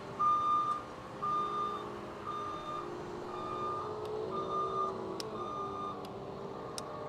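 Electronic warning beeper sounding a steady high beep about once a second, each beep a little over half a second long, with a vehicle engine running underneath whose pitch rises and falls.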